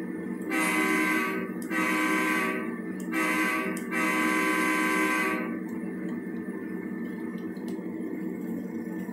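A model diesel locomotive's simulated air horn blowing the grade-crossing signal: two long blasts, a short one, then a long one, over a steady low drone.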